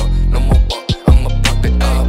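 Hip hop music: deep, sustained bass notes that break off and restart about every second, over sharp percussion hits.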